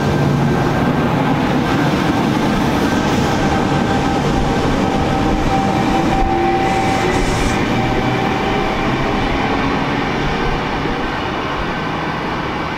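A V-set double-deck electric multiple unit runs beneath and draws away down the line. Its wheels and running gear make a steady rumble, with a thin steady whine on top. The sound eases off slightly near the end.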